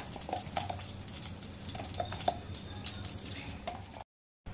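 Hot cooking oil in a clay pot sizzling faintly, with scattered small crackles and pops as it heats. The sound cuts out completely for a moment near the end.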